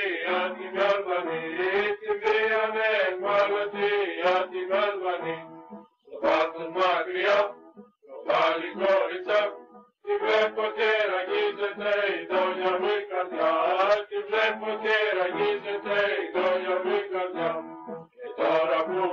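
Greek song in a chant-like style, sung by male voices in long phrases with brief breaks about six, eight and ten seconds in.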